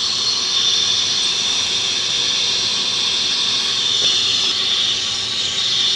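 Steady high hiss of dental equipment working at the mouth during laser removal of a lip fibroma, growing a little stronger about half a second in and again near the end.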